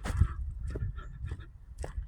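Footsteps crunching on dry ground, several steps in quick succession, over a low rumble on the microphone that sets in at the start.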